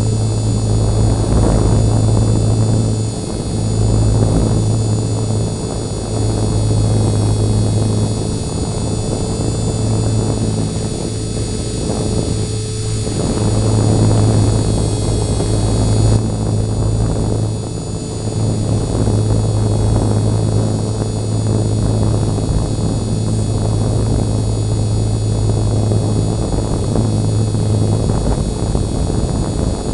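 E-flite MSR micro RC helicopter's electric motor and rotor running flat out, a steady low hum with thin high whines over a gusting rush of rotor wash, heard through a tiny camera microphone mounted on the helicopter. It is running at full throttle and barely holding a hover.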